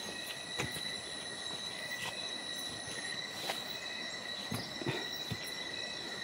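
Night insects, crickets among them, keeping up a steady high-pitched trill, with a few scattered knocks and rustles of someone moving through undergrowth.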